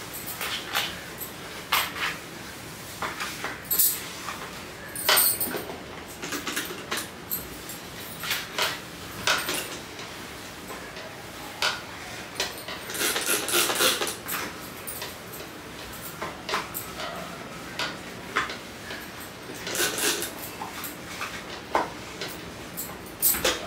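Irregular clatter and knocks of hard household objects being handled and set down, with a denser stretch of rattling about thirteen seconds in.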